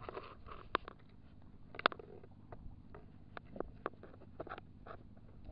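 Scattered light clicks and knocks, the loudest about two seconds in, over a faint low hum: handling noise on a small wooden fishing boat.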